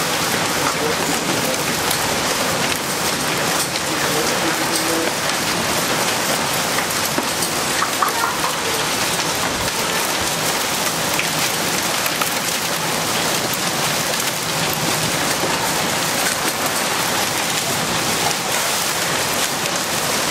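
Heavy rain mixed with small hail falling on a concrete patio and gravel: a steady, dense hiss with many fine ticks of individual impacts.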